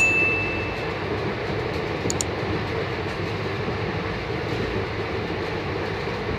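Indian Railways passenger coach running steadily on the track, a continuous rumble heard from inside the coach by the washbasin. A sharp click with a short ringing tone comes right at the start, and a couple of fainter clicks follow about two seconds in.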